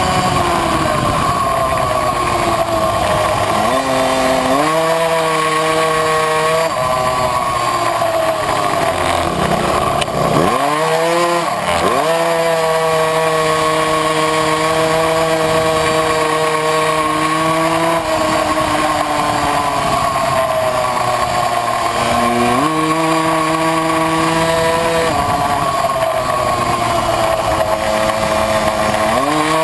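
Tuned 70cc two-stroke engine of a Puch Maxi racing moped, heard from on board at high revs. The revs fall away as it slows for corners and climb back under throttle, several times, with the deepest and sharpest drop about a third of the way in.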